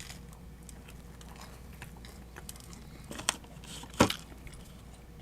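Chewing pizza close to the microphone: soft mouth clicks throughout, with two sharper, louder clicks a little after three seconds and at about four seconds.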